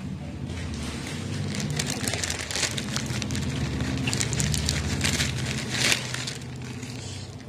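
Crisp kori rotti rice wafers crunching and crackling irregularly as they are broken and eaten.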